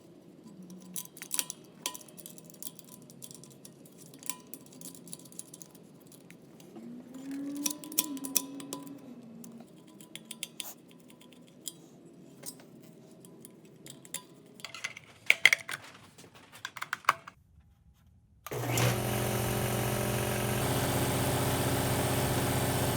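Scattered clicks and clinks of metal fittings and hand tools being handled. After a short silence, about three-quarters of the way through, the 60-gallon air compressor's motor and pump come in suddenly and run steadily, charging the tank.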